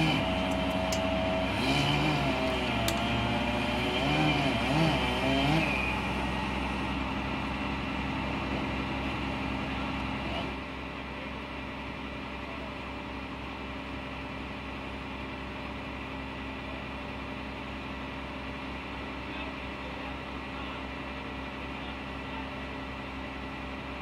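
Truck engine running, its pitch rising and falling for the first several seconds with a few light knocks, then dropping after about ten seconds to a steady, even idle hum.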